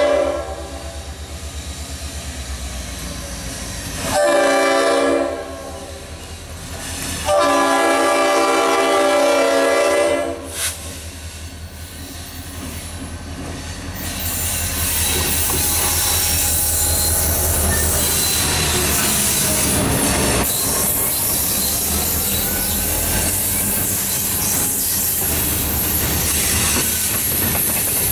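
EMD SD40-2 diesel locomotive sounding its multi-note air horn for a grade crossing: one blast cutting off at the start, a short blast about four seconds in and a long one from about seven to ten seconds, with a quick tap right after, over the engine's low throb. From about fourteen seconds the locomotive passes and freight cars roll by with a steady rumble of wheels on rail and faint wheel squeal.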